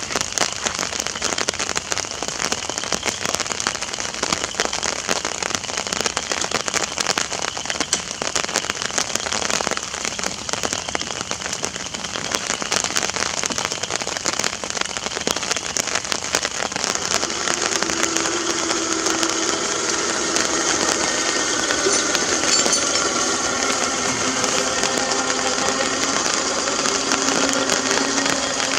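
Rain falling on an umbrella over the microphone, a dense crackle of drops. About seventeen seconds in, a motor starts running with a steady tone as the small electric winch pulls the stuck John Deere lawn tractor out of the mud hole.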